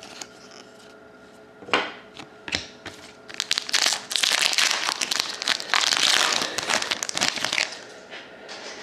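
Foil hockey card pack wrapper crinkling as it is torn open and handled. A couple of sharp clicks come first, then a long stretch of dense crinkling from about three to seven and a half seconds in.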